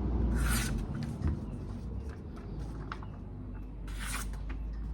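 Freshly sharpened Global kitchen knife slicing through paper in a sharpness test: two short swishes, about three and a half seconds apart, over a steady low hum.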